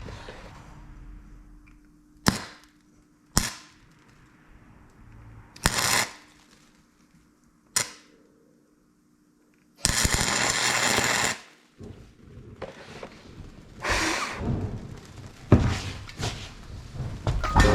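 Electric welder arcing in a series of short crackling bursts, with one longer burst about ten seconds in, as weld is built up on the stub of a broken exhaust manifold bolt to get it out.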